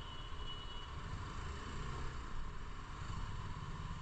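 Motorcycle running steadily on the move: a continuous engine drone with low rumble and no changes in pace.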